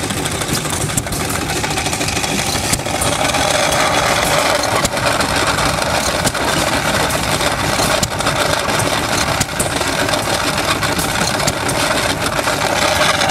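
Old stationary engine running steadily, with a dense mechanical clatter.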